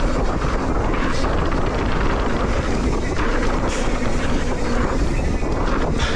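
Mountain bike rolling fast down a dirt trail: steady wind rush on the microphone over the noise of the tyres on dirt, with a few faint clicks and rattles.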